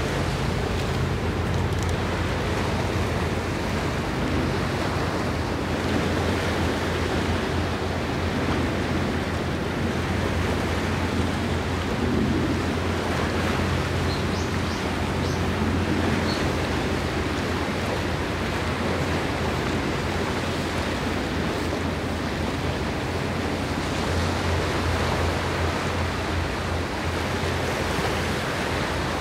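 Steady wind and water noise along the shore, with a low steady hum underneath.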